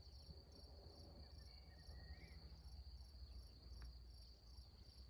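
Faint, steady high chirring of crickets, with a low rumble underneath.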